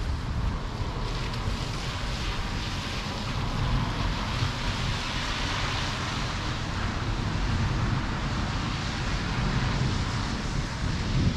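Storm wind gusting against the microphone in a steady buffeting rumble, with a rushing hiss that swells for a few seconds in the middle.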